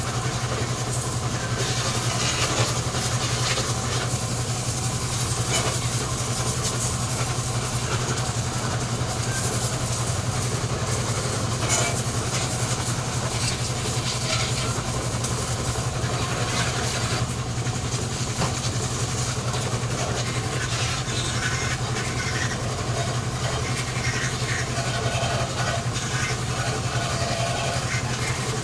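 An engine running steadily at idle with an even low hum, while water from a garden hose splashes and hisses against a van body.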